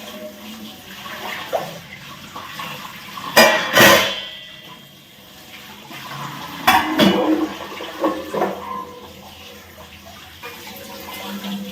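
Water running, with several sharp clatters of pots and dishes, loudest a little over three seconds in and again near seven seconds in.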